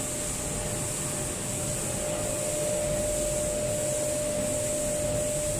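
Steady hum and hiss of running SMT pick-and-place machinery, with a faint steady whine.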